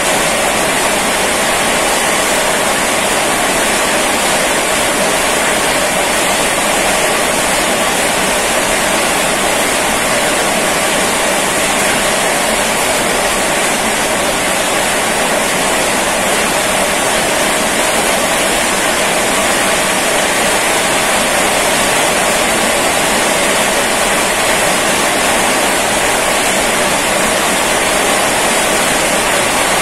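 Steady heavy rain falling: an even, loud rushing hiss that does not let up.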